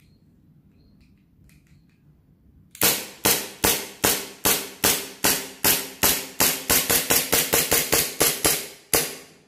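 KJW M9A1 gas-blowback airsoft pistol firing about twenty shots in a row, each a sharp pop with the metal slide cycling. The shots start about three seconds in, at a steady pace of a little over two a second, then come faster in the second half before a short pause and one last shot.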